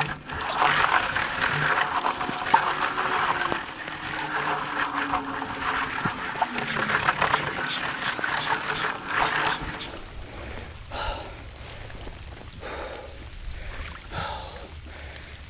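Ribbed culvert pipe dragged by hand over muddy, stick-strewn ground: a dense scraping and crackling for about ten seconds, then quieter with scattered scuffs.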